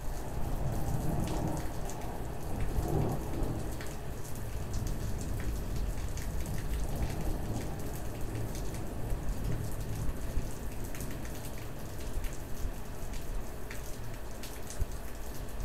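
Rain falling steadily in a storm, with a low rumble underneath and scattered sharp ticks of drops. The rain swells louder in the first few seconds.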